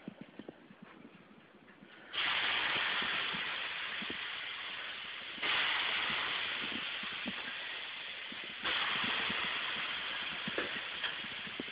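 Water thrown onto hot sauna stones three times, each throw setting off a sudden loud hiss of steam that fades slowly. Faint clicks and knocks sound before and between the throws.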